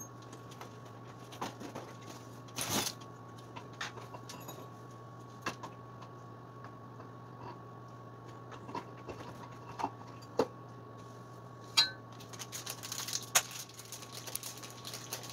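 Scattered clicks, clinks and knocks of metal scooter parts being handled as the rear wheel and swingarm are fitted, with a denser rattle of small parts near the end. A steady low hum runs underneath.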